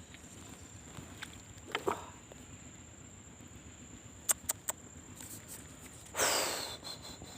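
Steady high-pitched insect trill, with a few faint knocks about two seconds in, three sharp clicks a little after four seconds, and a short loud rush of noise about six seconds in that dies away over half a second.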